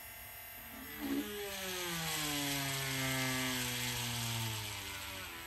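HOTO cordless rotary tool drilling into pine with a small bit, its motor running with a tone that sinks steadily in pitch as the bit loads up in the wood, then fades near the end.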